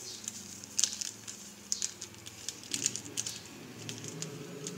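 Plastic seasoning packet crinkling with scattered small clicks and taps as MSG is shaken out of it, at irregular intervals.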